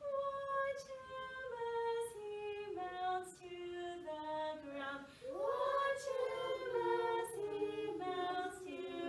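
A woman and young children singing a simple children's song together, unaccompanied, the melody stepping down note by note and then rising and falling again.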